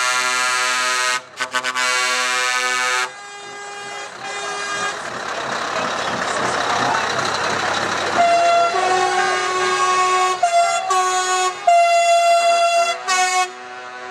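Scania trucks' multi-note air horns blowing. A long, loud chord runs for about three seconds with a brief break, then a weaker blast follows. A truck engine runs through a lull in the middle, and near the end comes a string of short horn blasts on two or three notes.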